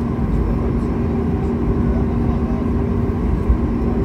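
Cabin noise of a Boeing 737 MAX 8-200 taxiing, its CFM LEAP-1B engines at low taxi thrust: a steady hum over a low rumble.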